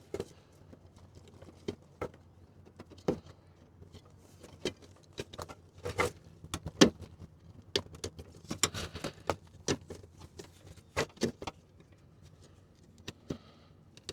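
Irregular clicks, taps and light knocks of hands handling small parts while an LED headlight bulb is worked into its housing.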